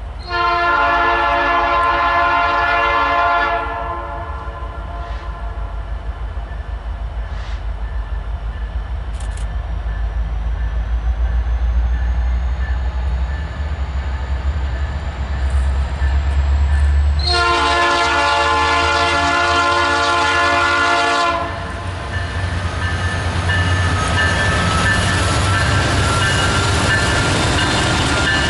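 Air horn of an EMD SD70 rebuild diesel freight locomotive: a long blast right at the start and another a little over halfway through, over the low engine rumble, which grows as the train approaches. Near the end the train passes and the steady noise of wheels on rail swells.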